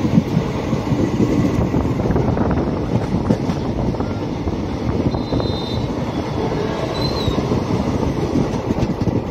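Passenger train running along the track, heard loud and steady from an open carriage doorway: the continuous noise of the wheels on the rails.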